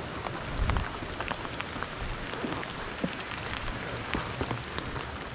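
Rain falling, with many small scattered drop ticks close by over a steady hiss. A brief low rumble sounds just under a second in.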